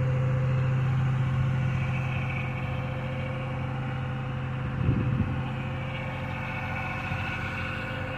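An engine idling steadily with a low, even hum, with a brief low rumble of handling noise about five seconds in.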